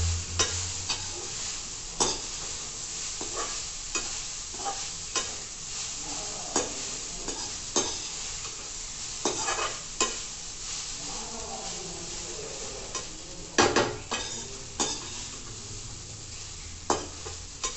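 Slotted metal spatula stirring poha (flattened rice) in a metal kadhai over a low flame: irregular scrapes and clinks of the spatula on the pan over a steady sizzle, with a cluster of louder knocks about two-thirds of the way through.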